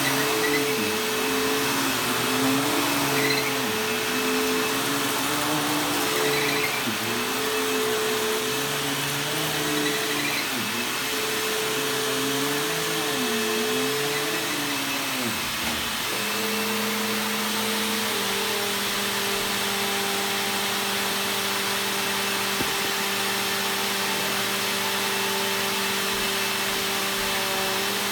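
Bissell bagless vacuum cleaner running on carpet. For about the first half its motor pitch wavers up and down as the vacuum is pushed back and forth, then it runs steadier, dipping slightly in pitch partway through.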